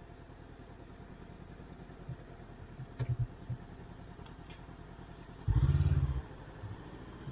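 Honda CBR500R's parallel-twin engine running at low speed with a low rumble, a sharp click about three seconds in, and a brief loud rev a little after five seconds.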